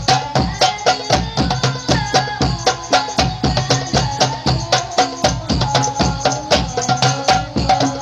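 Hadroh ensemble of hand-struck frame drums (rebana) and a large bass hadroh drum playing a fast, dense interlocking rhythm, about five strokes a second, with a sung sholawat melody carried over the drumming.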